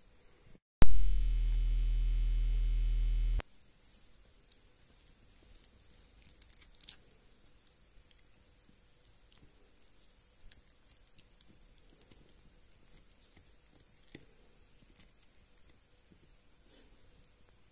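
Yorkshire terrier gnawing a hard dried chew stick, with faint scattered clicks and crunches of teeth on the chew. Less than a second in, a loud low buzz cuts in and runs for about two and a half seconds before stopping abruptly.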